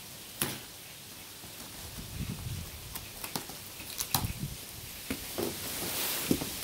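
Scissors cutting packing tape on a cardboard box, with several sharp clicks and scrapes of the blades against the cardboard, then a brief rasp as a flap is pulled open.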